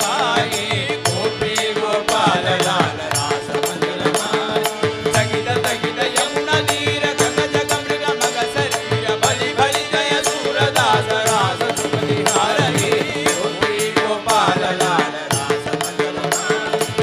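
Devotional bhajan music: a steady drone under a quick, even beat of hand percussion, with a wavering melody line above it.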